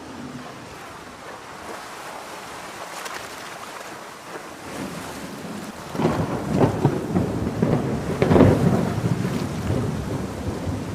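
Steady rain, then about six seconds in a loud clap of thunder that rumbles on for a few seconds, swelling twice before fading back under the rain.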